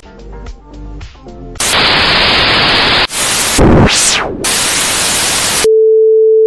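Soft plucked background music, then about a second and a half in, loud static hiss that breaks off for an instant, returns with a sweeping falling-then-rising whoosh, and near the end gives way to a single steady beep tone that cuts off suddenly.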